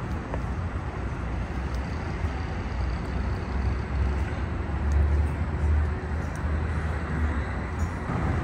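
Steady low rumble of city traffic noise, swelling slightly about five seconds in.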